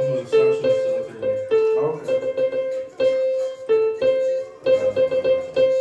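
Yamaha portable keyboard playing a simple melody one note at a time, mostly stepping back and forth between two neighbouring notes in a piano-like tone.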